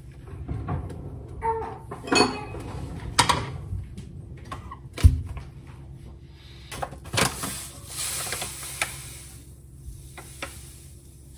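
Kitchen handling sounds: a ceramic bowl knocked onto a digital kitchen scale and a paper sugar bag rustling as sugar is poured into the bowl. Scattered clicks and knocks, the loudest a single sharp knock about five seconds in.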